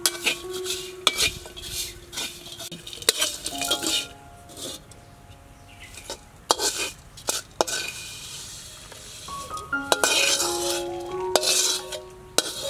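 A metal spatula scraping and clattering against a wok while ingredients are stirred, then the contents are scraped out of the wok near the end, with a light sizzle.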